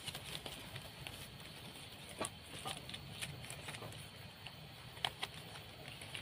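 Irregular light knocks and taps, with a sharper knock about five seconds in, over a low steady rumble.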